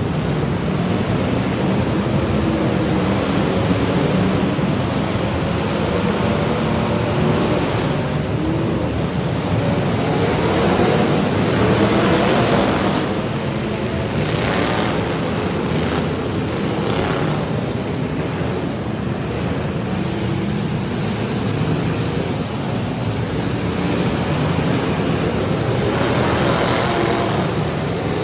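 Several demolition derby cars' engines running and revving together, with pitch rising and falling throughout.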